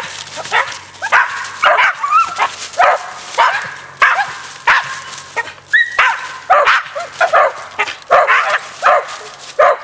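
Two tree dogs barking treed at the foot of a tree, a steady run of loud barks about two a second from both dogs overlapping, some rising in pitch: the sign that their quarry, a cat, is up the tree.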